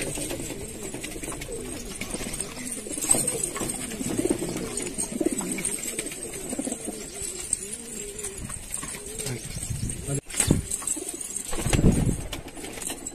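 Domestic fancy pigeons cooing, several low wavering coos overlapping through the loft. A brief low rumble near the end is the loudest moment.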